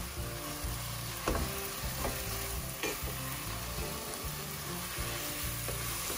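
Raw lamb mince sizzling as it fries in a non-stick pan of hot onion-tomato masala while a wooden spoon stirs and breaks it up. A few sharp knocks of the spoon stand out in the first three seconds.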